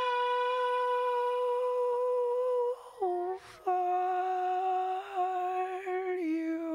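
Music: a lone hummed or sung note, held very steady, that steps down to a lower held note about three seconds in after a brief break, then drops once more near the end as the song closes.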